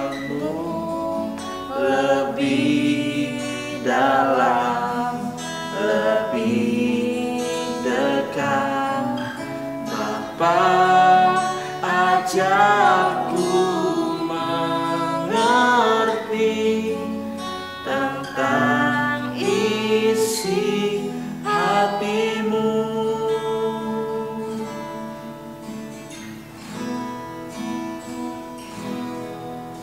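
Music: an Indonesian-language worship song, sung with acoustic guitar accompaniment; it grows softer in the last few seconds.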